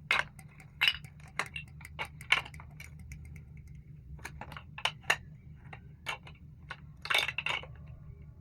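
Plastic Duplo bricks clicking and knocking together as they are handled and pressed into place, in irregular sharp clicks with a louder clatter of several clicks about seven seconds in.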